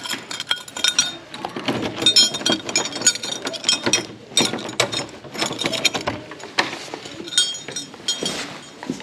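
Keys jangling and clicking in a door lock while a brass doorknob is worked, a long run of irregular metallic clinks and clicks with a light ring.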